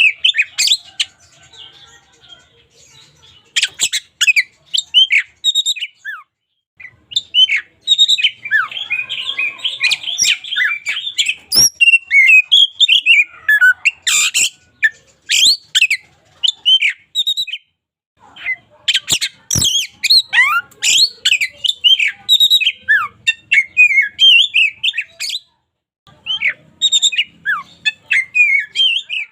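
An oriental magpie-robin (kacer) singing a rapid, varied song of whistled, chirping and harsher notes that slide up and down. It comes in long bursts broken by a few short pauses.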